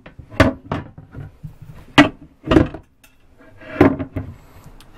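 Solid-surface (Corian) sink cover being handled on the countertop: a few sharp knocks, the loudest about two seconds in, and a longer scraping slide near the end.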